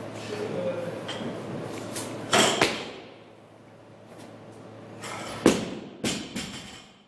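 Loaded barbell with bumper plates thudding onto a wooden lifting platform. There are two heavy hits about two and a half seconds in, then another loud hit about five and a half seconds in, followed by a couple of smaller bounces.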